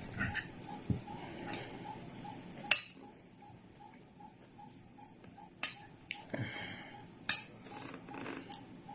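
Cutlery clinking against a plate while eating, with a few sharp clicks about 3, 6 and 7 seconds in. Under it runs a faint, steady ticking about three times a second.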